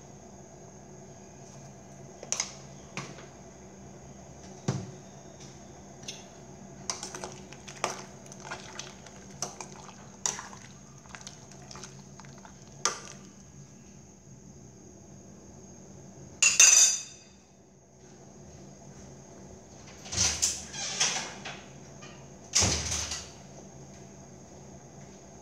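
A metal spoon stirring soup in a stainless steel pot, clinking against the pot's sides, with a few louder clatters in the second half. A steady high-pitched whine and a low hum sit underneath.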